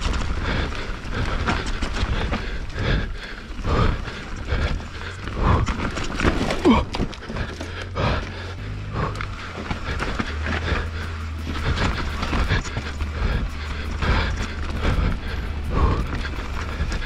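YT Jeffsy full-suspension mountain bike racing down a rough enduro trail: a dense, irregular clatter of knocks and rattles as the wheels, suspension and chain hit roots and rocks. Steady low wind rumble on the rider-mounted microphone.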